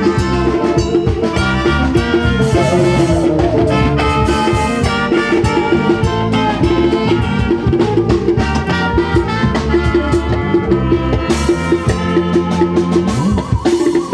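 Upbeat dance music, loud and continuous, with drum kit and percussion keeping a steady beat under melodic instrument lines.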